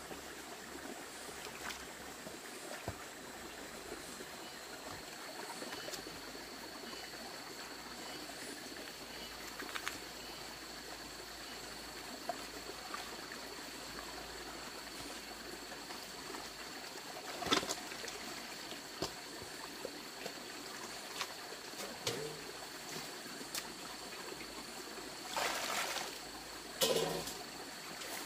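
Shallow stream trickling over stones, with occasional splashes and knocks from clothes being washed by hand in a metal basin in the water; louder splashing near the end as a cloth is lifted and rinsed.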